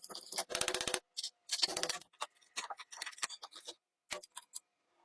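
British-made hammer drill clattering in short bursts, one with a rapid, even rattle of strokes about half a second long, among scattered sharp clicks.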